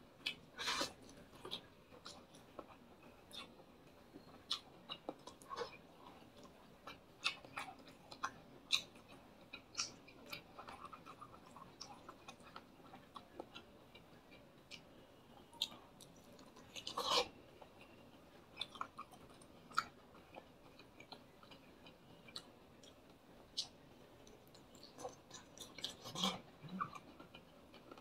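A person chewing and eating fried fish, chicken and squid with rice by hand: scattered short, wet mouth smacks and clicks, with a louder bout of them partway through.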